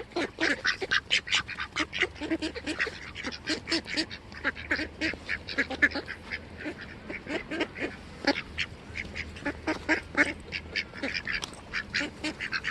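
A flock of waterfowl calling, many short honking and quacking calls overlapping several times a second without a break.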